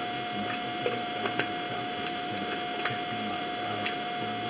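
Steady electrical hum with a thin high tone, and a few faint light clicks from a plastic vitamin bottle being handled.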